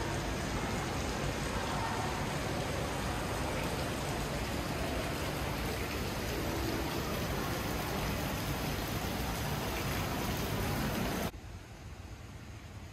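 Steady rushing noise with no clear pattern, which cuts off abruptly near the end and leaves a much quieter hiss.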